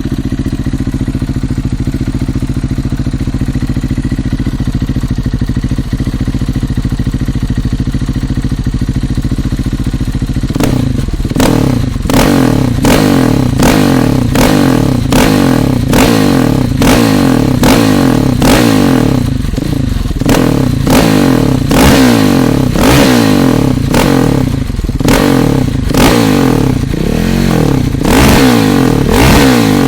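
KTM 690 Duke's single-cylinder engine through an aftermarket exhaust, idling steadily, then from about ten seconds in blipped in quick short revs about once a second.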